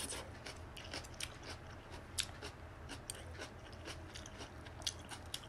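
Close-up mouth sounds of chewing a mouthful of lettuce and rice noodles: irregular wet clicks and smacks, the sharpest about two seconds in.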